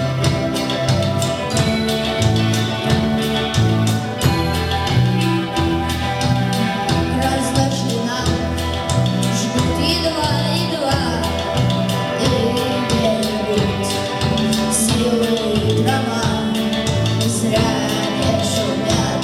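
Song by a Soviet-style vocal-instrumental ensemble, with a repeating bass line and a steady drum beat under a melodic part.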